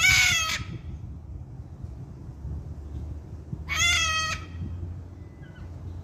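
A white cockatoo calling twice: two loud, pitched calls of about half a second each, the second about three and a half seconds after the first, over a low steady background rumble.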